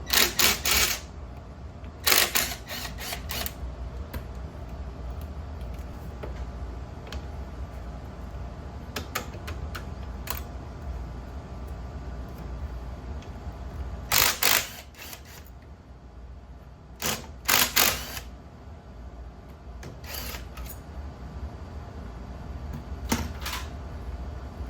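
Scattered bursts of sharp clicks and clatters, like hand tools and small metal parts being handled, over a steady low hum.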